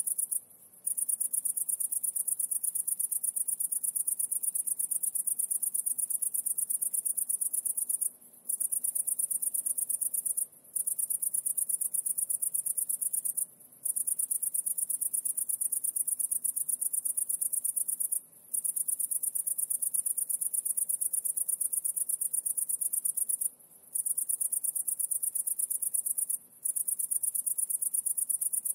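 High-pitched insect trill, a rapid steady pulsing that breaks off for short pauses about six times.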